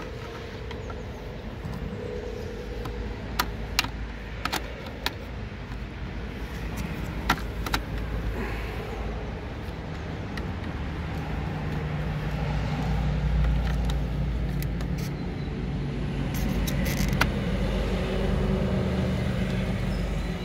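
A motor vehicle's engine running nearby, its low rumble growing louder over the second half. A few sharp plastic clicks come mostly in the first half, as the mirror's indicator unit is handled and fitted.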